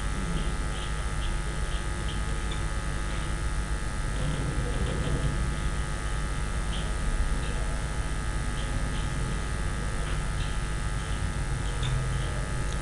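Steady electrical hum and buzz with hiss, the background noise of the recording setup, with a few faint ticks.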